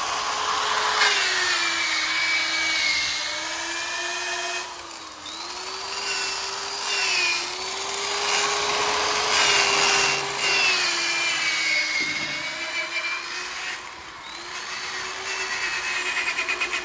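Handheld electric rotary polisher with a foam pad buffing rubbing compound into a tractor's painted sheet metal. The motor whines steadily, its pitch sagging and recovering several times as the pad is pressed against the panel.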